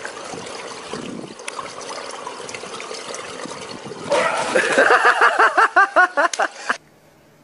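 Pool water churning and splashing as a swimmer surges up out of it, followed by a person's voice in a quick run of short rising-and-falling bursts, like laughing, for about two seconds; it all cuts off suddenly near the end.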